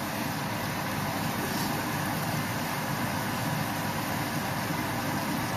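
Steaks sizzling in butter and oil in a frying pan: a steady sizzle over a low rumble.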